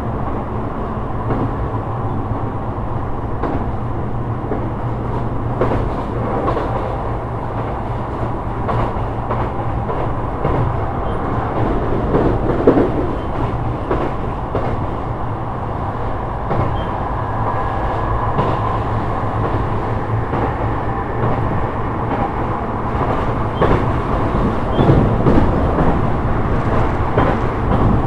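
Sotetsu 12000 series electric train running, heard from inside the car: a steady rumble of wheels on rail broken by irregular clicks and knocks from the track.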